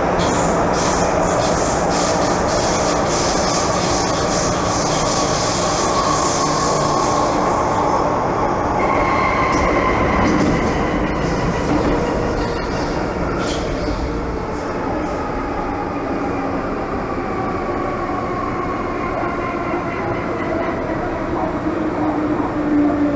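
MTR M-train electric multiple unit running, heard from inside the driving cab: rumbling wheel and rail noise with high squeal and ticks for the first eight seconds or so. From about nine seconds in, several motor tones slide slowly down in pitch as the train slows on its approach to a station.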